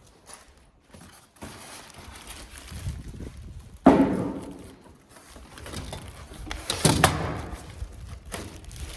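Thuds and rustling from unpacking and handling a bathroom exhaust fan-light unit and its packaging, with two louder knocks about four and seven seconds in.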